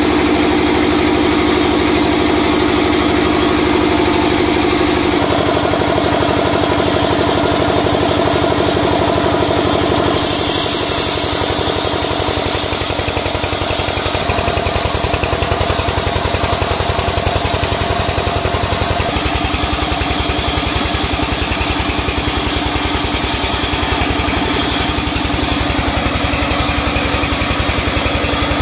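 Sawmill band saw running and cutting lengthwise through a large timber beam, a steady loud mechanical drone with a fast pulse; a harsher hiss joins about ten seconds in.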